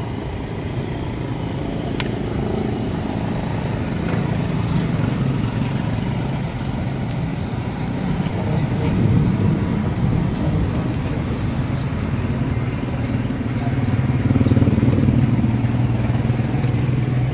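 A motor running steadily with a low hum, with a single sharp click about two seconds in.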